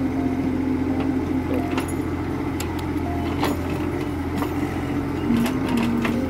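Hitachi excavator's diesel engine running under hydraulic load while the bucket digs out an old coffee-tree stump, its drone shifting in pitch as the load changes. Several sharp metallic clanks come from the bucket and linkage working the roots.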